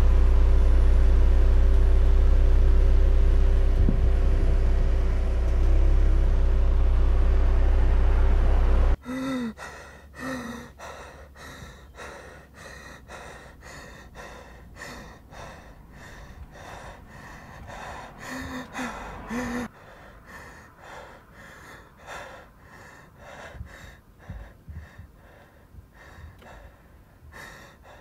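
Steady low rumble of a car heard from inside it, cutting off abruptly about nine seconds in. Then a man breathing hard and fast, with a few voiced gasps among the quick, repeated breaths.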